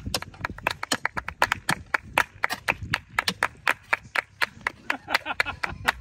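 A small group of people clapping their hands in a quick, uneven rhythm, about five or six sharp claps a second, not quite together.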